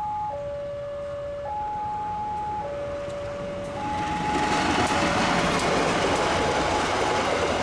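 Railway level-crossing warning alarm sounding two alternating tones, switching about once a second. From about four seconds in, a KAI diesel locomotive and its passenger carriages pass, their rumble and rail noise rising loud over the alarm.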